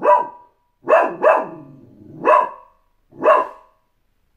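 Small dog barking: five sharp barks, two of them close together about a second in.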